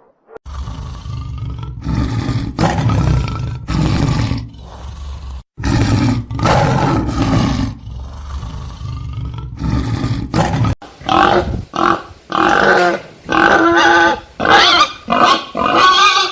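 A large animal roaring: a series of deep, loud roars and growls, giving way about ten seconds in to a run of shorter, quicker, higher calls.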